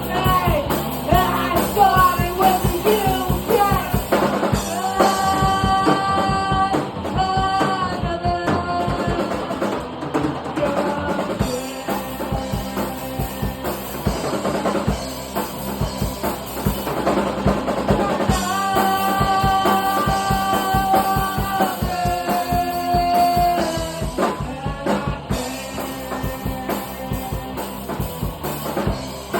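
Rock music: a drum kit keeps a steady beat under guitar and singing, with long held notes twice.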